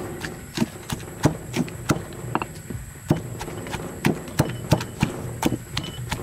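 Stone pestle pounding chilies in a heavy stone mortar: a steady run of dull knocks, about three a second, slightly uneven.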